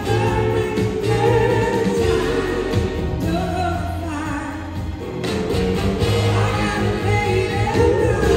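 Live blues-rock band playing, with singing over electric guitars, bass and drums, heard from the audience.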